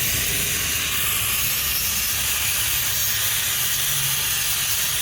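Loud, steady hiss of rushing air.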